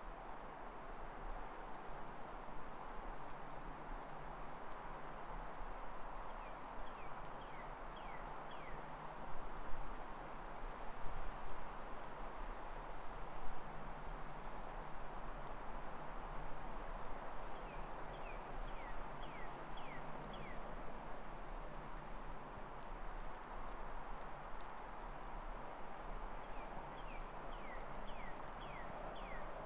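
Footsteps crunching steadily in wet, thawing snow. Small birds call over them: a high, thin chirp repeated throughout, and three times a short series of falling whistled notes.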